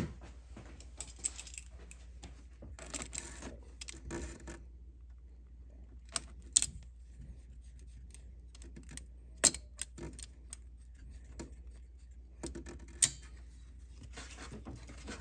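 Pliers and other metal hand tools clinking while the pliers are fitted to the spring hose clamp on the upper radiator hose at the thermostat housing: scattered light rattles and rustles, with three sharp metallic clicks about three seconds apart in the second half.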